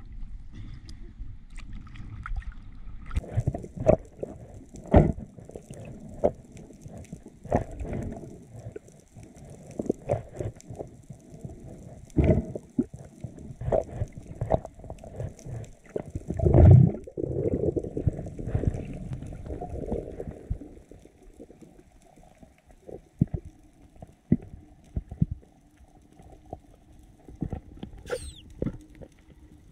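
Underwater sound from a freediver's action camera during a dive: a muffled rush of water with irregular knocks and clicks from the diver's movement and gear, the loudest a dull thump about two-thirds of the way in. About three seconds in the sound turns muffled as the camera goes under.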